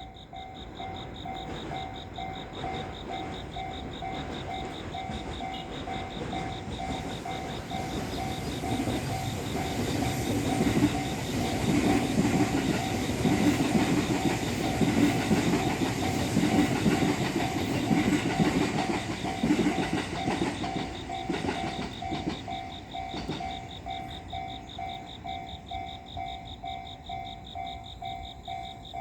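Japanese level-crossing warning bell ringing in steady, evenly repeated dings while a two-car JR West 223 series electric train runs past over the crossing. The train's rumble builds, is loudest about halfway through, then fades as the bell keeps ringing.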